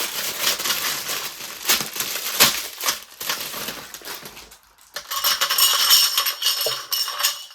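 Small hardware pieces being handled, with rustling and clicking. From about five seconds in, small metal fittings jingle and clink together in a rattle that rings.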